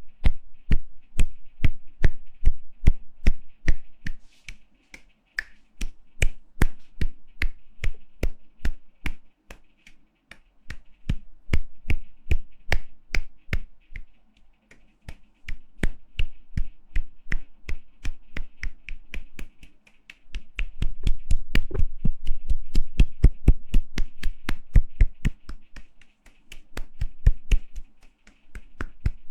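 Hands clapping or slapping in a quick, even rhythm, about three to four sharp slaps a second, in runs with short pauses. From about twenty seconds in the slaps grow louder and fuller for several seconds.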